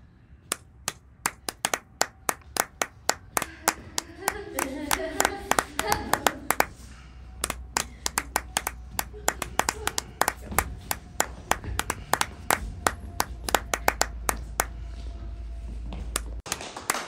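Sparse applause: a few people clapping, each clap distinct, with voices calling out briefly about four to six seconds in.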